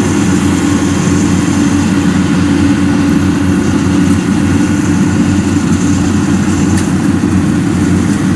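Kubota PRO75G rice combine harvester running steadily under working load, its 75-horsepower four-cylinder diesel engine giving a constant low hum.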